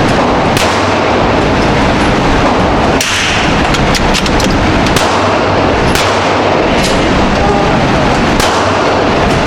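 Gunshots: about a dozen sharp cracks at irregular intervals, several close together around three to five seconds in, over a steady loud background noise.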